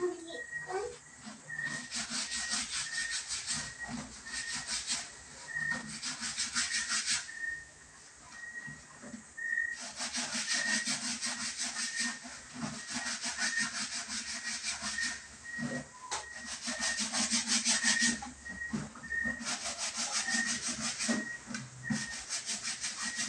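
Wet clothes being scrubbed by hand in a plastic bucket: fabric rubbed hard against fabric in quick, rhythmic strokes, in spells of a few seconds with short pauses between. A faint high peep repeats about twice a second underneath.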